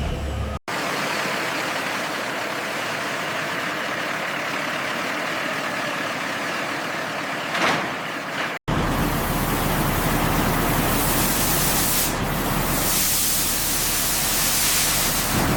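Steady vehicle noise in two sections, each starting abruptly after a cut; the second, from about halfway in, is louder with a low hum underneath.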